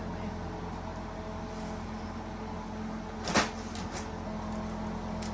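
A steady machine hum, like a fan or heater running. About three seconds in there is a single short, sharp clatter, then a couple of faint clicks.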